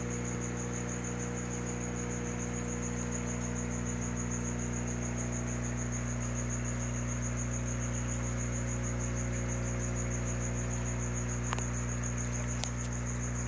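A steady low hum, with a high chirping pulsed evenly about five times a second over it. A couple of faint clicks near the end.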